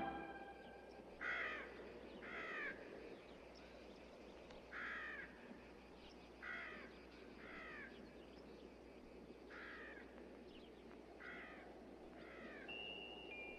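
A crow cawing, single caws at uneven intervals of one to two seconds, about nine in all, over a faint steady background hiss. A few high, sustained tones come in near the end.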